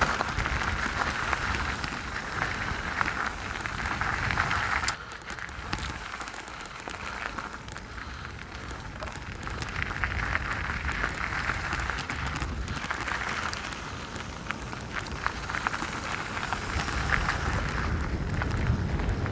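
Canyon Strive CFR mountain bike riding down a rocky trail: tyres crunching over gravel and stones, with rattling from the bike and rumble on the camera microphone, a steady rush full of small clicks and knocks. It goes quieter for a few seconds about five seconds in, then builds again.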